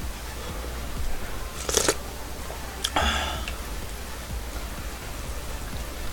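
A person slurping spoonfuls of hot beef and radish soup and chewing, with two short, sharp slurps about two and three seconds in.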